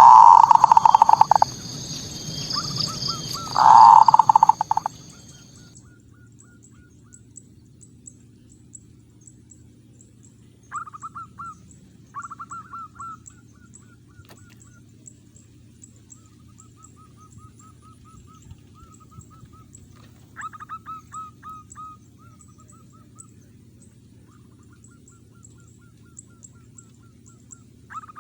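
Zebra dove (perkutut) cooing song: two loud pulsed phrases in the first five seconds, then quieter, rapid trilling coo phrases repeating every few seconds. A faint, high, rapid ticking runs underneath.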